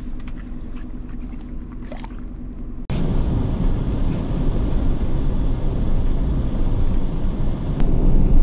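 A low steady hum inside a van with a few faint clicks. About three seconds in, this jumps to a loud, even rush of engine and tyre noise as the van drives along a snow-covered road.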